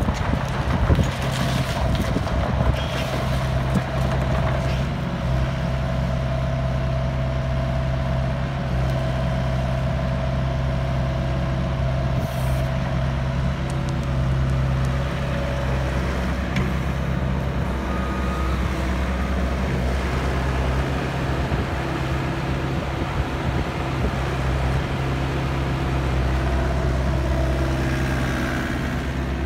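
Hyundai Robex 60CR-9A excavator's diesel engine running at a steady speed, a continuous low hum with a faint higher whine over it and a few knocks in the first few seconds.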